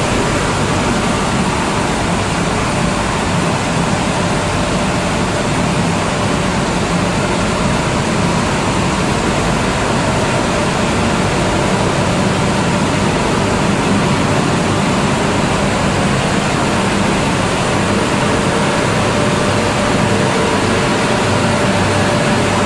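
Wheat flour milling line running: a loud, steady mechanical rush of the mill's machinery and air system, with a faint steady tone held underneath.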